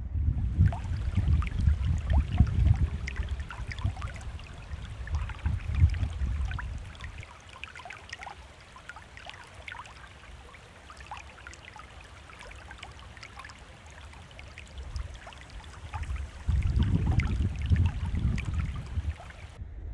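Water trickling and splashing, heard as a steady hiss full of small drips, with wind rumbling on the microphone for the first seven seconds and again near the end.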